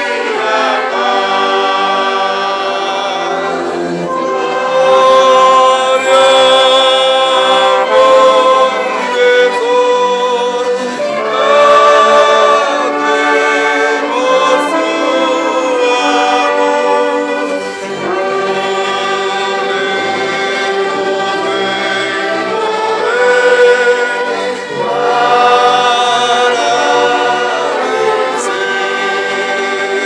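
A hymn sung by many voices together, accompanied by brass and woodwind instruments, saxophone among them, playing sustained chords.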